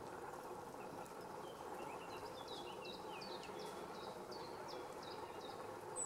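Great tit calling: a quick series of short, high notes, each sliding down in pitch, about three a second, starting a second or so in and stopping near the end. A steady low hum of background noise lies under it.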